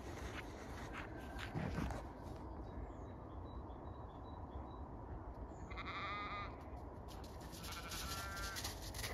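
Zwartbles ewes bleating: two calls, about six and eight seconds in, over a steady low background hum of open air.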